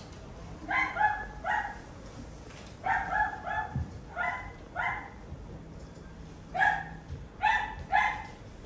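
Small dog barking in quick, high-pitched yaps, about a dozen in short runs of two to four.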